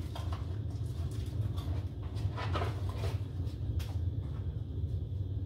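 Steady low background hum with a few faint clicks or knocks, about two and a half and four seconds in.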